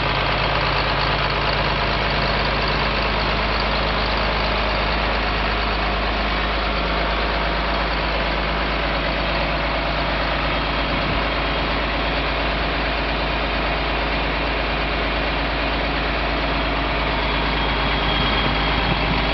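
John Deere 4255 tractor's six-cylinder diesel engine running steadily.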